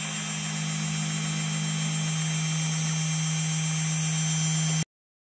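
Desktop CNC router's spindle motor running with a steady hum and a high hiss as it cuts the outline of a Mylar stencil sheet. The sound stops abruptly near the end.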